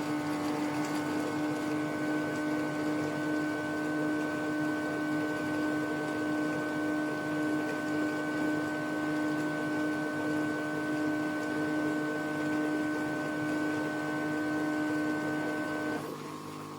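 Ecovacs Deebot X9 Pro Omni base station pumping clean water and cleaning solution into the robot's tank: a steady mechanical hum with a fixed high tone, which cuts out near the end as refilling finishes.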